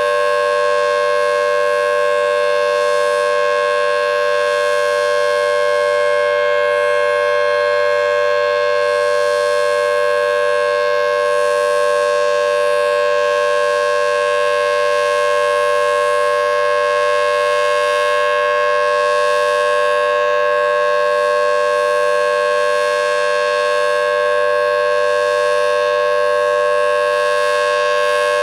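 Federal Signal Thunderbolt 1000T outdoor warning siren sounding its steady full-alert tone. It holds one loud, unwavering pitch with no rise and fall in volume because its rotator is stuck and the horn stays pointed one way.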